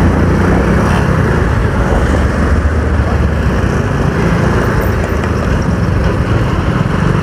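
Motorcycle engine running steadily while riding in slow traffic, heard from the rider's seat, under a constant rushing noise of road and wind.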